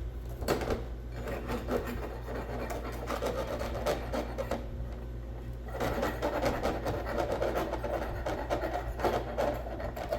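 Rasping, scraping strokes in two spells of about four seconds each, over a steady low hum.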